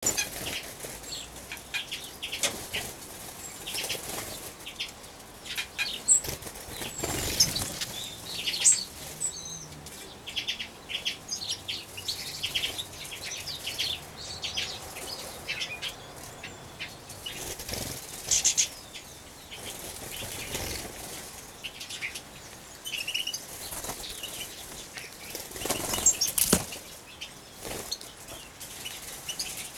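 Small finches, European goldfinches among them, fluttering their wings in many short bursts, with a few short high chirps now and then.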